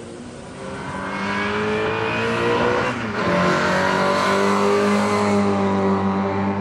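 Historic racing car engine at full throttle, climbing steadily in pitch, dropping back about three seconds in, then holding a high, loud note.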